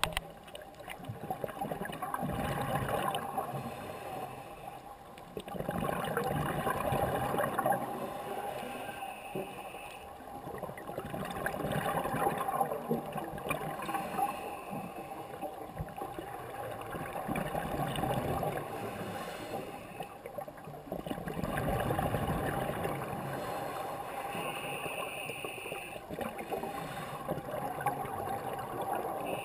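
Scuba breathing through a regulator underwater: exhaled bubbles gurgling and bubbling, swelling and fading in slow breaths about every five seconds.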